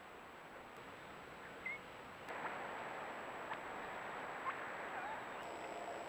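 Trail-camera outdoor ambience: a steady hiss with a faint steady high whine, a short rising bird chirp a little under two seconds in and another brief chirp near the end, and a few sharp clicks about once a second in the middle.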